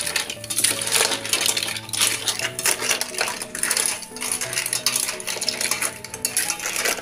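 Metal ladle stirring mussels in their shells in a stainless steel pot: a rapid, continuous clatter of shells clinking against each other and against the metal pot.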